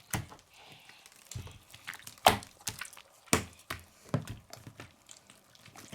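Slime being squeezed and kneaded by hand, giving off irregular sticky clicks and pops.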